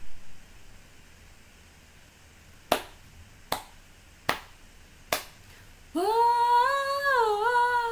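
Four finger snaps, evenly spaced a little under a second apart, counting in the tempo; then a woman's voice comes in unaccompanied, holding one long sung note that wavers and dips slightly near the end.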